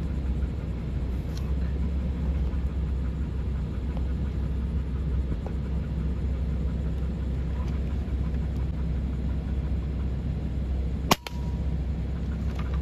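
A single sharp crack about eleven seconds in, a shot from a PCP air rifle, over a steady low outdoor rumble.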